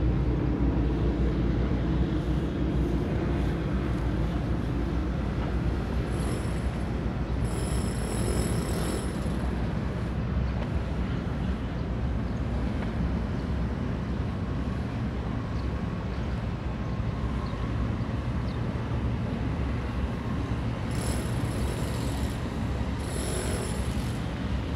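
Steady low outdoor rumble and hiss at a harbour entrance, with two short high-pitched buzzes about six and twenty-one seconds in.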